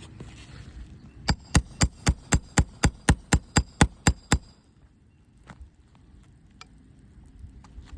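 A roofing hammer striking a steel nail puller about a dozen times in quick, even succession, about four blows a second with a slight metallic ring, driving the puller under shingle nails to pull them. A few faint taps follow.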